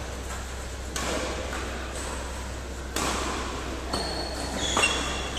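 Badminton rackets hitting a shuttlecock in a rally: sharp smacks about a second in, three seconds in, four seconds in and just before the end. There are short high squeaks near the end, typical of court shoes on the floor.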